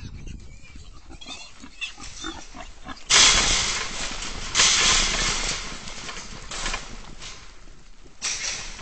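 Wild hogs squealing: loud, harsh squeals break out about three seconds in and again a second and a half later, each tailing off, with a shorter squeal near the end over lower grunting and shuffling.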